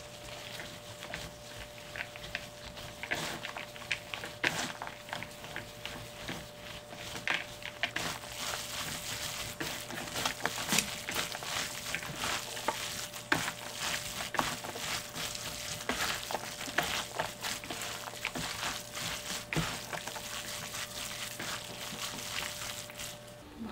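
Rubber-gloved hands tossing and squeezing julienned radish coated in wet red chili powder in a plastic basin: a continual wet squishing and rustling made of many small irregular clicks.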